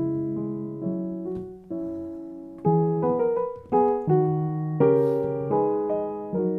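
Piano music: a light melody of chords struck one after another, each ringing and fading before the next.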